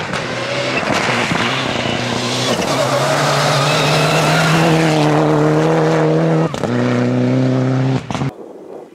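Rally car engine at high revs, its note climbing about two and a half seconds in and then held, with a brief lift a little after six seconds, over a rushing haze of tyre noise. The sound cuts off abruptly near the end.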